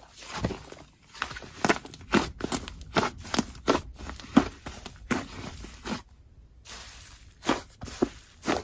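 Slime with clay mixed in being squeezed and kneaded by hand, giving irregular sharp clicks and pops, a few a second, with a brief pause a little after six seconds.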